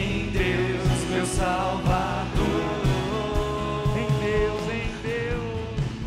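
Catholic worship song played by a band, with a drum beat of about two strokes a second under a voice singing long, wavering held notes.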